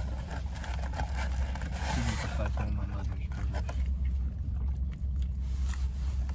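Someone chewing fried food, with small clicks and light rustling of food and packaging, over a steady low hum inside a car.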